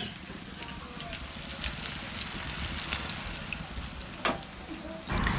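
Freshly caught fish frying in hot oil, a steady sizzle with small crackles.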